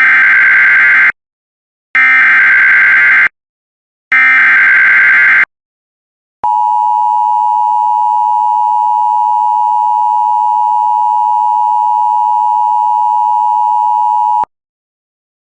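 Emergency Alert System SAME header: three bursts of data tones, each about a second long and a second apart, encoding a Severe Thunderstorm Warning. Then the EAS two-tone attention signal (853 and 960 Hz) sounds steadily for about eight seconds and cuts off sharply.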